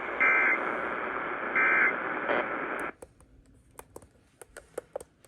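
Emergency Alert System end-of-message signal heard over radio static: two short bursts of warbling two-tone data about a second and a half apart. The hiss cuts off suddenly about three seconds in, and a few faint clicks follow.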